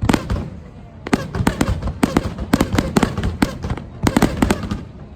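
Aerial fireworks bursting in a rapid-fire barrage, sharp reports coming several a second, with a short lull about half a second in.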